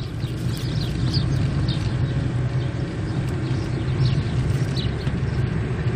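Interior noise of an old car driving along a village road: the engine runs steadily under an even road noise. Faint, short, high chirps come now and then.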